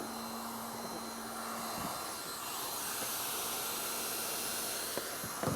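Hand-held hot-air welding gun blowing steadily, tack-welding a thermoplastic roofing pipe flashing in place.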